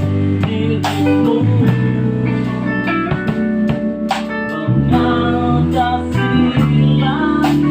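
A band playing an instrumental: a guitar melody with bent, gliding notes over bass guitar, keyboard and a drum kit.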